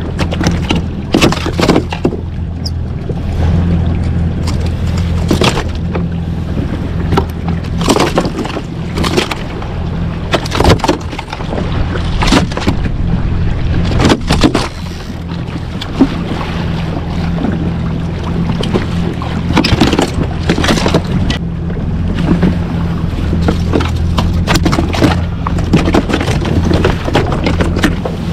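Yamaha jet ski's engine idling with a steady low hum, with water lapping against the hull and irregular sharp knocks and splashes scattered throughout.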